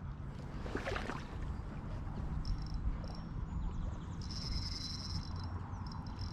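Outdoor ambience with a steady low wind rumble, a brief swish about a second in, and a thin high-pitched bird or insect call held for about a second just past the middle, with shorter high notes before and after.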